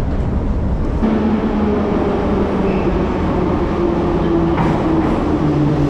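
Metro train pulling into an underground station: a steady rumble with a motor whine that falls in pitch as it slows.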